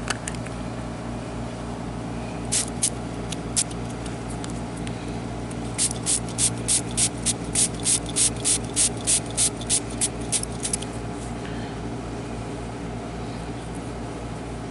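A hand spray bottle squirting water onto a freshly dug coin to rinse the dirt off. There are a few squirts, then a quick run of about fifteen squirts at about three a second, over a steady low hum.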